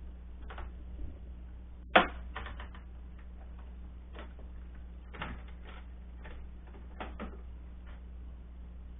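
Utensil knocking and scraping against the slow cooker's crock as the cooked pork is stirred: one sharp knock about two seconds in, then scattered lighter clicks.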